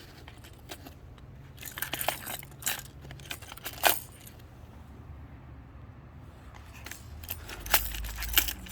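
Hard plastic fishing lures with metal treble hooks clicking and jingling as they are handled, in a series of short sharp clicks and clinks.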